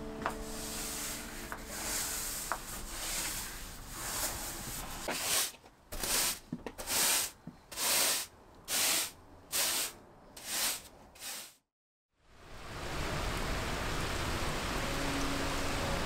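Broom sweeping a wooden henhouse floor: about eight swishing strokes, a little under one a second, after several seconds of scratchy brushing. After a short break, a steady hiss of rain.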